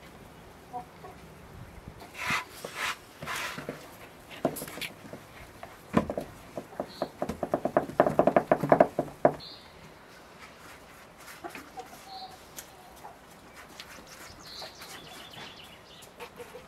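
A chicken clucking in a rapid run of calls from about six to nine and a half seconds in, with a few short high bird chirps scattered through the rest.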